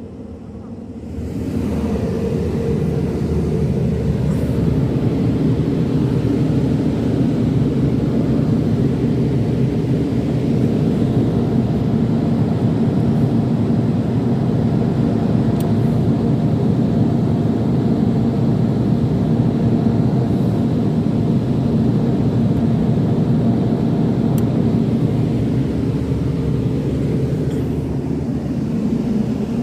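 Loud, steady low hum and rumble from a large parade sound system's speakers once its connectors are plugged in. It swells up over the first second or two, then holds even, with no music or speech.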